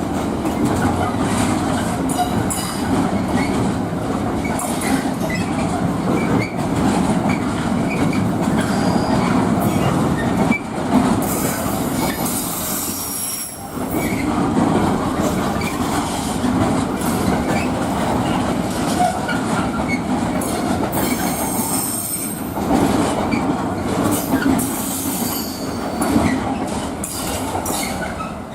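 A freight train passing at speed: the wagons make a continuous rumble with a fast run of clicks from the wheels, and a high-pitched wheel squeal comes and goes. The sound falls away near the end.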